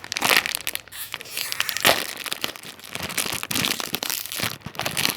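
Plastic snack packet crinkling and tearing as it is ripped open by hand, in a run of irregular crackles with louder rips near the start and around two seconds in.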